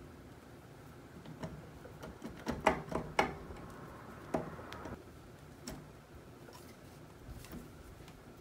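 Light metallic clicks and clacks as a Honda TRX400EX flywheel, with its starter clutch, is turned and pushed by hand onto the crankshaft to line its slot up with the Woodruff key and seat it on the starter gear. A quick run of sharp clicks comes about two and a half to three and a half seconds in, then single clicks later.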